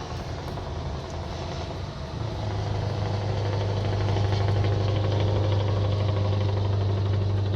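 Scania V8 diesel engine running steadily at idle, with a deep hum that grows louder about two seconds in and then holds.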